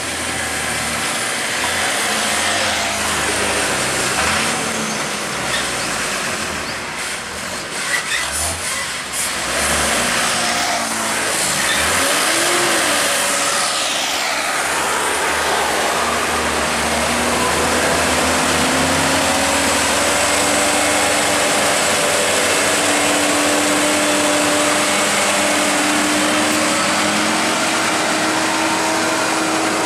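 Isuzu Giga trucks' diesel engines pulling up a steep hill under heavy load. The engine note rises slowly through the second half as a truck passes close.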